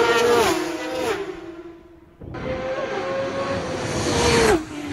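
Racing motorcycles passing at speed, two pass-bys. In each, the engine note swells and then drops sharply in pitch as the bike goes by, the second one loudest just before the end.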